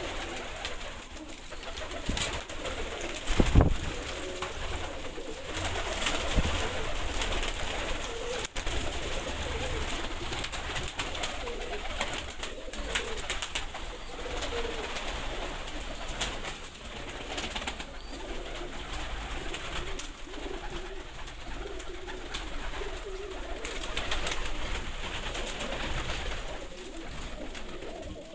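Domestic pigeons cooing in a loft, with rustling throughout and one loud thump about three and a half seconds in.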